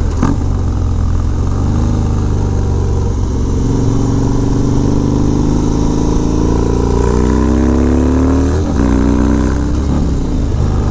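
Harley-Davidson Dyna's V-twin engine pulling hard through a Bassani exhaust as the bike accelerates: the pitch climbs steadily, then drops back at two upshifts in the second half.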